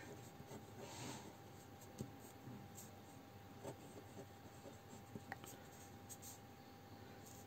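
Faint scratching of a pen writing on paper, with a few light ticks.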